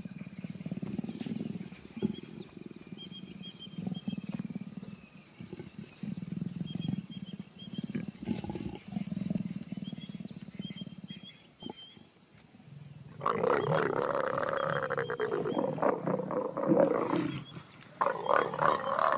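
Leopards growling while mating: low pulsing growls through the first part, then louder, harsher snarling about two-thirds of the way in and again near the end. Insects trill steadily behind.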